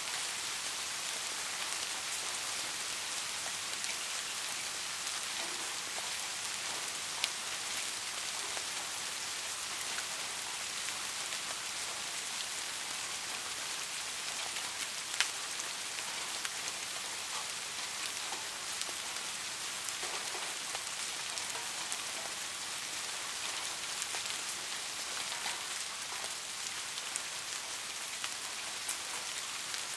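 Steady rain falling: a dense, even hiss with single drops ticking through it, and two sharper drips about seven and fifteen seconds in.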